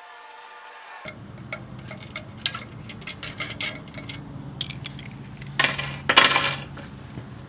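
Metal parts of a pedal bike's rear axle assembly clinking and knocking as the wheel is worked off the axle. There is a string of sharp taps, then two louder scraping rasps about six seconds in.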